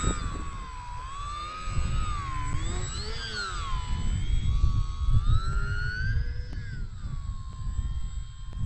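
Radio-controlled model aircraft's motor and propeller whining overhead, the pitch rising and falling as it passes close and changes throttle. A low rumble of wind on the microphone runs underneath.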